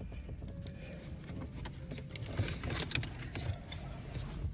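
Scattered faint plastic clicks and rustling from the trim surround and its wiring connectors being pulled off around a BMW E39's gear shifter, over a steady low rumble.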